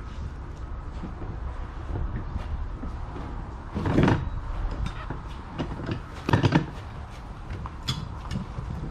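A few dull knocks and scuffs over a steady low rumble, the loudest about four seconds in and two close together around six and a half seconds in, with lighter clicks between.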